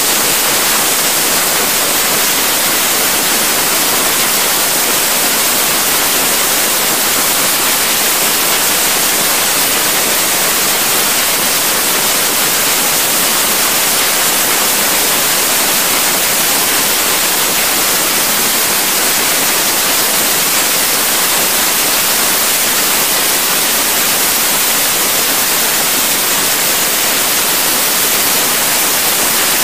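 Steady rushing hiss of air being drawn through heating ductwork during duct cleaning, constant in level with no breaks.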